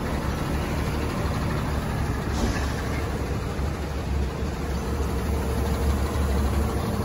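Volkswagen Constellation 24.250 truck's diesel engine running at low speed, a steady low rumble. A faint steady whine joins it about two and a half seconds in.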